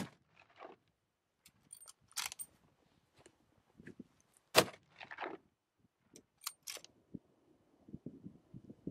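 Scattered soft clicks and brief rustles close to the microphone, like handling noise, with one sharp click about four and a half seconds in.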